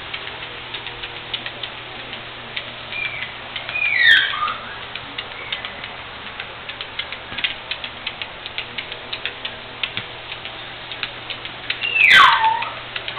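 Keeshond's claws clicking irregularly on a tile floor as she hobbles about on her front paws and rear stumps. The dog gives two short whines that fall in pitch, about four seconds in and again near the end.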